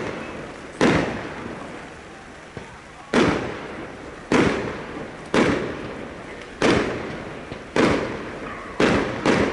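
Fireworks display: aerial shells bursting in a run of about eight sharp bangs, roughly one a second, each trailing off over a second or so, with two coming close together near the end.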